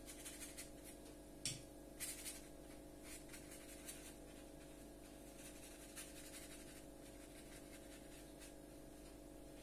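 Faint scratchy strokes of a watercolour brush on paper, a few of them in the first few seconds, over a steady low hum.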